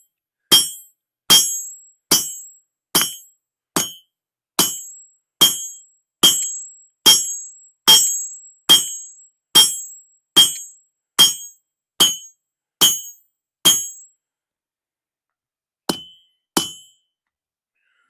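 Hand hammer striking hot steel bar stock on an anvil, drawing out and shaping the bottle-opener end: a steady run of blows a little more than one a second, each with a short ring. The blows stop for a moment, then two last ones land near the end.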